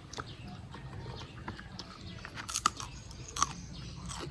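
Close-miked chewing and biting of food, with a few sharper crunches in the second half.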